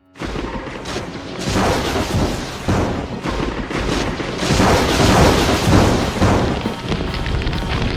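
A long, rumbling boom sound effect, full of crackling impacts, that starts suddenly and swells to its loudest past the middle, over background music.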